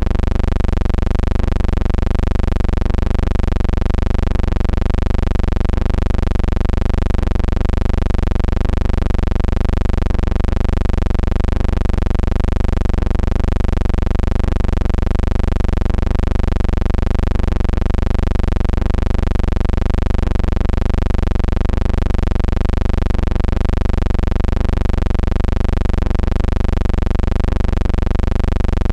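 A steady, loud low hum with a stack of evenly spaced overtones that wobble slightly in pitch, pulsing faintly at a regular rate.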